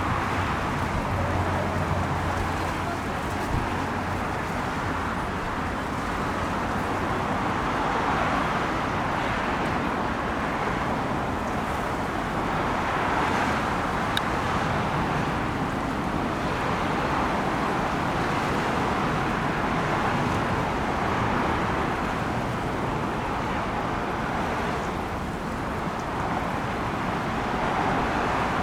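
Steady road traffic noise, with passing vehicles swelling and fading every few seconds.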